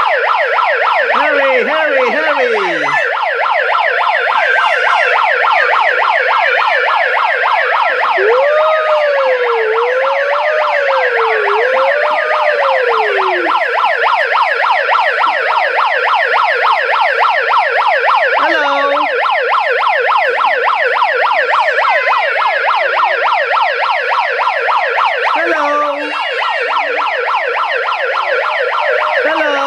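Toy fire megaphone's electronic siren sounding loudly and without a break, a rapid, evenly repeating wail.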